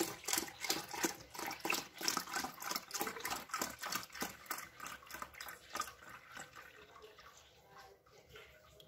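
UHT milk glugging from a carton's spout into a plastic measuring jug: a quick run of gurgles, about three or four a second, that grows fainter over the last few seconds.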